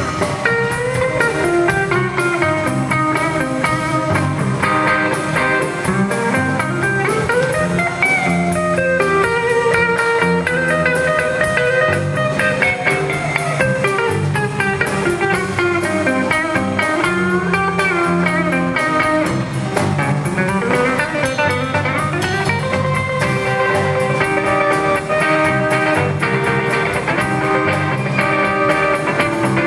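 Live blues band with an electric guitar soloing on a hollow-body guitar, its lead line full of bent and sliding notes, over bass and drums.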